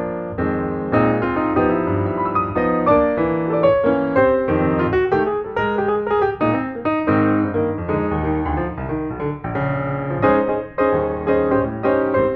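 Piano music: a steady flow of quick notes over a lower accompaniment.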